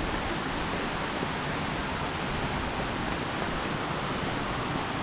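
Waterfall heard close by: a steady, even rush of falling water.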